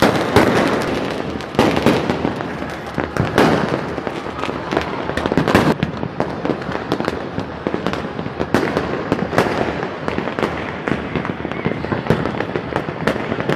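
Many fireworks and firecrackers going off at once: a continuous rattle of pops and bangs, with some louder bangs among them.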